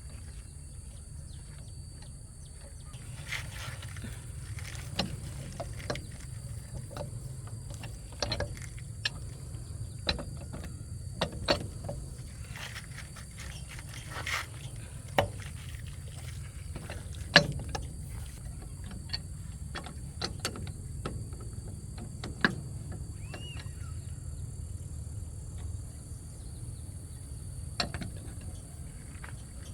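Irregular clinks and knocks of hand tools on metal while a car wheel is worked on, one or two every second or so with a louder knock about two-thirds of the way through, over a steady low hum.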